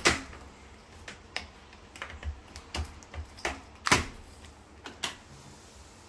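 Door lock hardware being handled at the edge of the door: a run of irregular sharp metal clicks and knocks, the loudest right at the start and about four seconds in.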